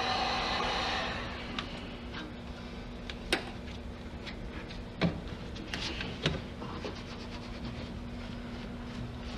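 A steady blowing motor cuts off about a second in. Then come scattered light clicks and rubbing from trim panels and headliner material being handled, with two sharper knocks about three and five seconds in.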